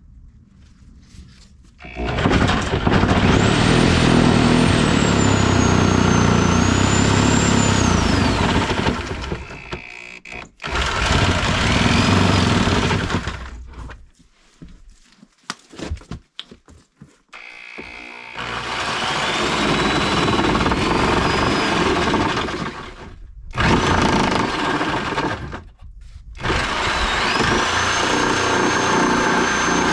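Angle grinder cutting through the steel skin of a foam-filled door, in several runs of a few seconds with short pauses between them. Its high whine dips and rises as the disc loads and frees up.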